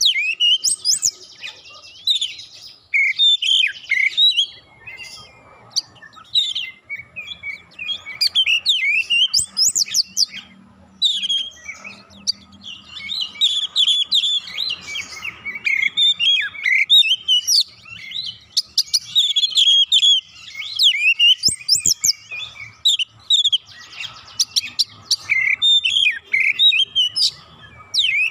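Oriental magpie-robin singing in full song: dense runs of varied whistles, chatters and sharp up-and-down notes, broken by brief pauses.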